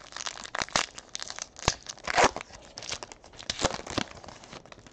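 Plastic-foil wrapper of a Panini Elite Draft Picks football card pack being torn open by hand, an irregular run of crinkling and tearing, loudest a little past two seconds in.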